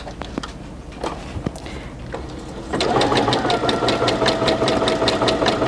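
Brother A150 sewing machine starting to sew nearly three seconds in: a steady motor whine with rapid, even ticking of the needle strokes as it runs a three-step zigzag along the fabric edge. Before it starts, a few light clicks.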